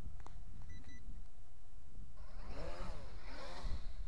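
Bayangtoys X16W quadcopter's motors and propellers lifting off, with a buzzing whine that swings up and down in pitch from about two seconds in as the throttle changes. Before that, wind rumbles on the microphone, with a short beep about a second in.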